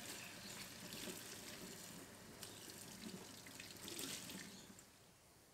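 Kitchen tap running faintly into a stainless-steel sink, the water splashing over hands being rinsed under it; the sound dies away near the end.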